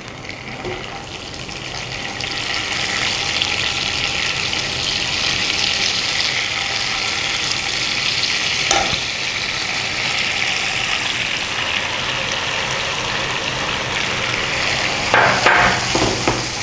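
Ginger, garlic and green chilli paste sizzling as it fries in hot ghee and butter with cumin seeds, a steady hiss that builds over the first couple of seconds as the paste goes in. A silicone spatula stirs it in the pan, with a brief knock about nine seconds in and a few short louder sounds near the end.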